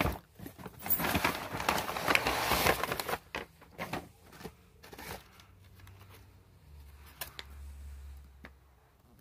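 Packing material in a cardboard box rustling and crinkling as it is pulled out, loudest in the first three seconds, then a few light taps and knocks as the contents are handled.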